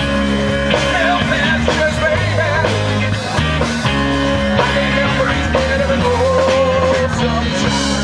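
Live rock band playing through a PA: drums, bass and electric guitar, with a wavering melody line over the top, during a stretch with no sung words.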